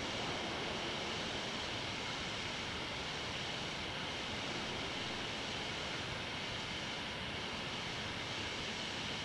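Steady, even hiss with no distinct sounds: microphone noise and room tone in an empty, quiet room.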